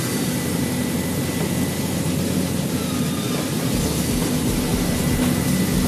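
Steady engine drone and running noise of a motor vehicle on the move.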